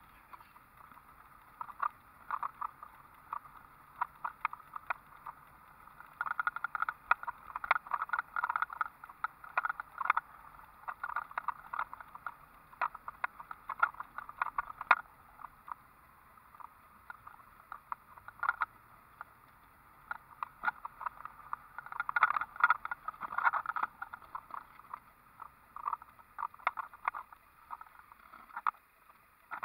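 Irregular rattling and clicking from inside a moving car as it drives over the road, with busier clatter in places.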